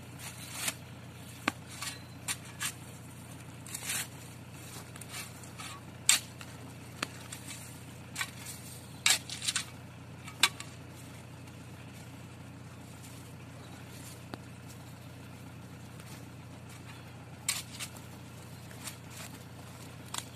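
A spade digging into soil: irregular scraping and crunching strokes as the blade is pushed into the earth and levered around a hogweed root, with the loudest strokes in the middle and a few near the end.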